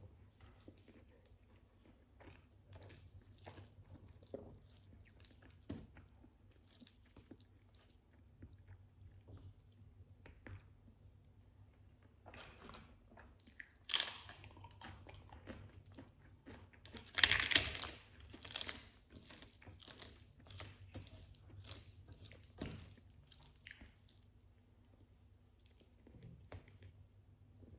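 Close-miked eating: a person chewing and biting food with soft wet mouth clicks, and two louder crunchy bites about halfway through.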